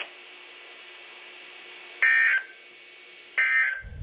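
Emergency Alert System SAME data bursts on a weather radio broadcast: two short, shrill, buzzing digital bursts about a second and a half apart, over faint radio hiss. They are the start of the three-burst end-of-message code that closes a Required Weekly Test. A brief low thump comes near the end.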